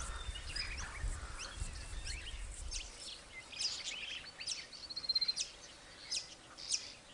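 Wild birds calling: many short, sharp chirps throughout, with a brief rapid trill about five seconds in. A low rumble runs underneath for the first few seconds.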